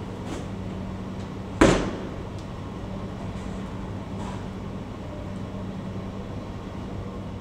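Steady low hum of outdoor air-conditioning units running, with one loud bang about a second and a half in and a few faint clicks.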